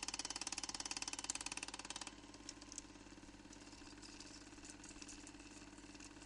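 Old film projector running: a fast, even mechanical clatter that drops about two seconds in to a quieter hum with scattered crackles and clicks.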